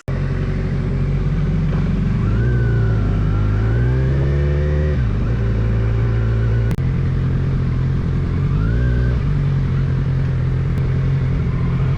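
Motorcycle engine accelerating through the gears: its pitch climbs for a few seconds, drops at a gear change about five seconds in, then climbs again.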